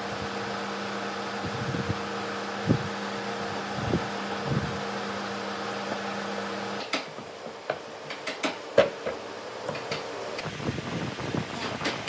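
A steady mechanical hum with a low tone, like a fan or motor running in a workshop, which cuts off abruptly about seven seconds in. After that come scattered light knocks and clicks of wooden boards being handled.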